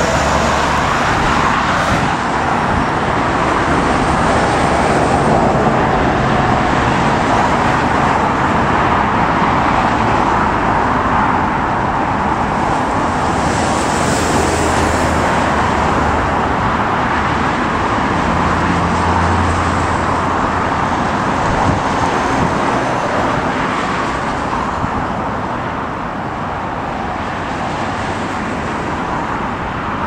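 A steady, loud outdoor roar: jet engines of a Boeing 787 airliner on final approach mixed with road traffic, and strong wind buffeting the microphone. The roar eases slightly near the end.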